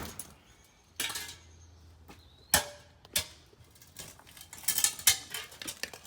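Hard knocks and clinks of broken concrete being busted up and shifted: a few separate strikes, then a quicker clatter of pieces about two-thirds of the way in.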